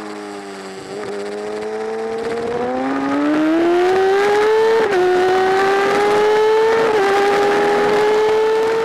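Superbike engine heard from onboard, its note falling as the bike slows through a corner, then rising hard under full throttle. Twice, about five and seven seconds in, the pitch drops suddenly at an upshift and climbs again.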